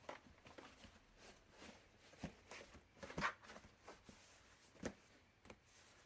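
Laundry basket being handled: a scattered series of light knocks, taps and rustles, the loudest cluster about three seconds in and another sharp knock near five seconds.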